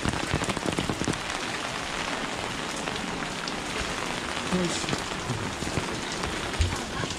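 Steady rain falling, with a dense patter of close drop impacts in the first second or so and a few dull thumps later.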